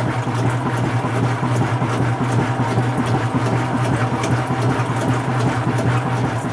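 GE top-loading washing machine running: a steady low motor hum with a rushing noise over it.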